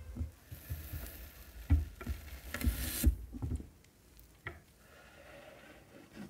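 Chef's knife cutting down through a block of frozen ice cream, a rough scraping cut with several sharp taps of the blade against the wooden cutting board. The cutting noise stops about three seconds in, and a few faint clicks follow.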